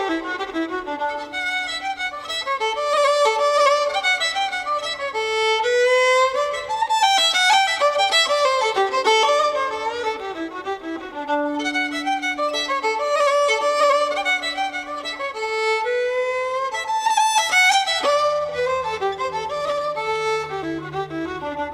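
Fiddle music: a quick tune of many short notes running up and down, with a lower accompaniment coming in near the end.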